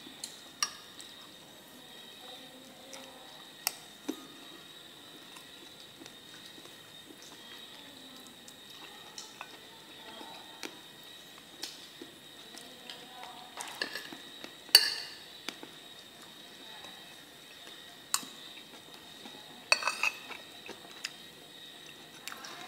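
Metal spoon clinking against a ceramic plate of stir-fried frogs in scattered, quiet taps, with a louder clatter about two-thirds of the way through and a short cluster of clinks near the end.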